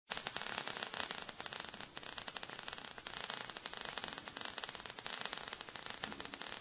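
Faint crackling static: a steady hiss dense with small irregular clicks.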